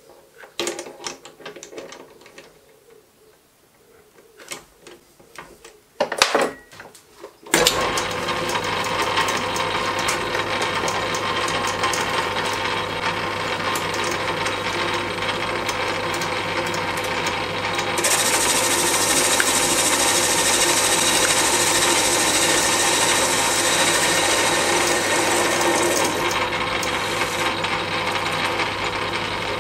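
Metal-working lathe: a few clicks and knocks as a round blank is fitted in the four-jaw chuck, then the lathe starts about seven seconds in and runs with a steady hum. About halfway through, a bright hiss of the tool cutting the spinning blank joins the motor hum.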